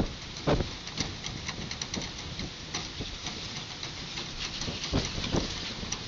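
Strong wind gusting over the microphone: a steady rushing hiss broken by irregular low buffeting thumps, the strongest about half a second in and again around five seconds.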